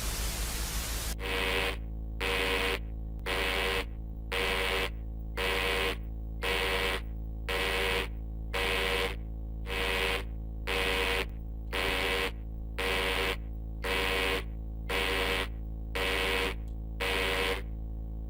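Radio static hiss that stops about a second in, then a synthetic emergency alert beep repeating about once a second, some sixteen half-second beeps, over a steady low electrical hum.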